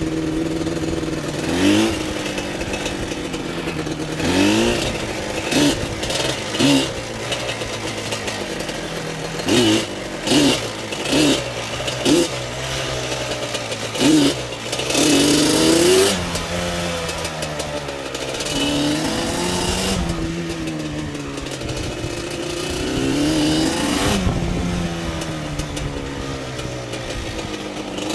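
A vehicle engine idling and revved in a series of short throttle blips, about ten in the first half, each with a brief burst of rattly noise, then revved more slowly up and down a couple of times.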